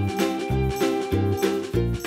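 Upbeat background music with a bouncing bass note about twice a second under steady sustained notes.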